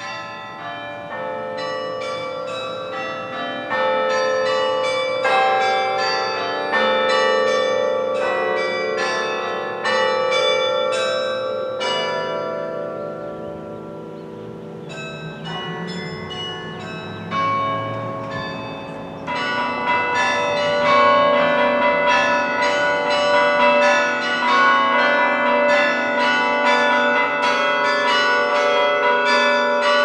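Carillon playing a lively tune: tuned bronze tower bells struck in quick melodic runs over lower bells left ringing. The playing thins and grows quieter around the middle, then comes back denser and louder about two-thirds of the way through.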